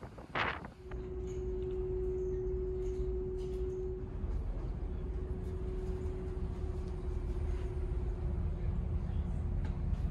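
A brief gust of wind on the microphone, then the steady low rumble of a large car ferry's engines with a constant hum over it.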